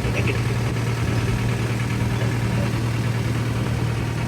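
Motorboat engine running steadily, a constant low hum with no change in speed.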